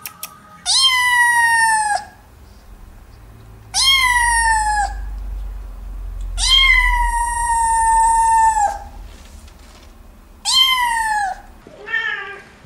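A kitten meowing: four long, high meows a couple of seconds apart, the third the longest, then a shorter, lower call near the end.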